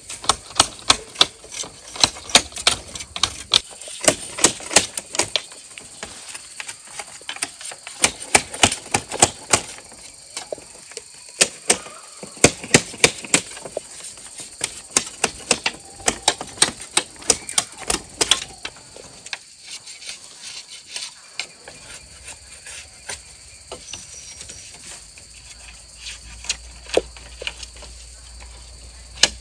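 Many quick, irregular sharp taps and knocks, thick for the first two-thirds, then thinning out to scattered single knocks.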